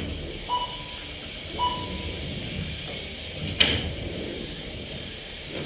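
Two short electronic beeps about a second apart, typical of an RC race lap-counting system marking cars crossing the line, over a steady hum of room noise. One sharp knock comes about three and a half seconds in.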